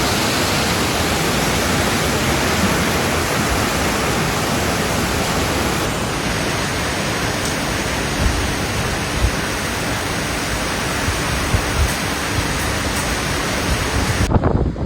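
Tropical cyclone wind and heavy rain: a loud, steady roar of noise, whose sound shifts slightly about six seconds in.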